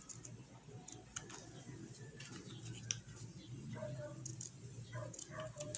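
Scissors snipping through a thin plastic soft-drink bottle, with a few crisp clicks, the sharpest about three seconds in.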